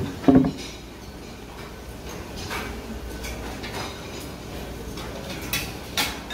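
A wooden lid on a buffet food box is moved and comes down with a loud knock about a third of a second in. Scattered light clicks and clinks follow over a steady low hum, two sharper ones near the end.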